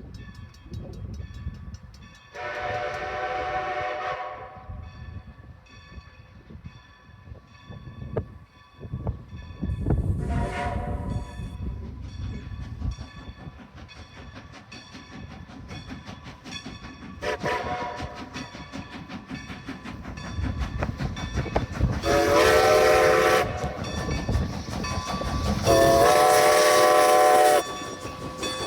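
A train's locomotive sounds a multi-note chord signal in five blasts: a long one, two shorter ones, then two long, louder ones near the end. Under the blasts runs the low rumble and clatter of the moving train.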